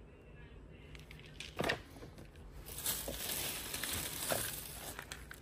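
Paper shopping bag and tissue paper rustling and crinkling as a hand rummages through them, loudest in the middle, with a sharp knock about one and a half seconds in and another near the end of the rustling.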